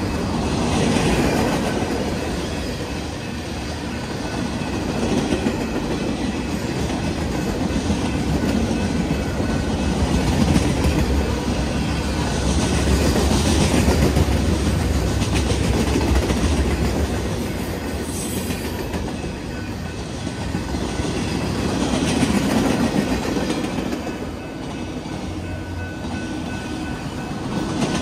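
Freight train cars rolling past at speed, a steady rumble and clatter of wheels over the rail joints that swells and eases every few seconds.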